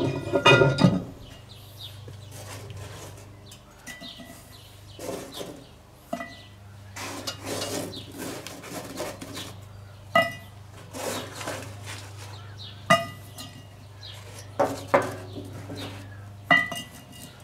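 Cast-iron lid of a Petromax ft4.5 Dutch oven clattering into place, then a run of separate metallic clinks and knocks, some ringing briefly, as charcoal briquettes are set one by one onto the lid.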